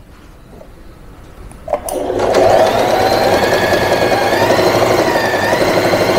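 Wonder Stitch Plus electric sewing machine starting up about two seconds in and running steadily at speed, sewing a zigzag stitch.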